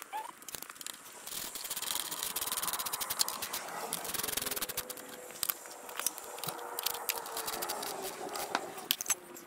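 Hands working on a motorcycle exhaust: scraping with many sharp clicks and rattles, getting louder about one and a half seconds in.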